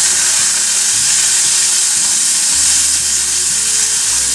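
Yakisoba frying in a pan, a loud steady sizzle that cuts off abruptly near the end.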